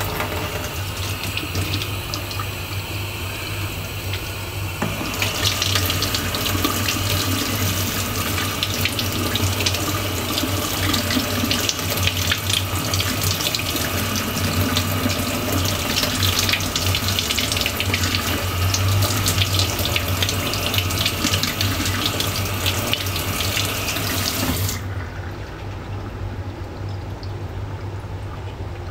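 Kitchen tap water pouring over a flashlight held in the hand and splashing into a stainless steel sink, a splash test of the light's water resistance. About five seconds in the flow turns to a louder, hissier spray; near the end the water is shut off suddenly, leaving a low steady hum.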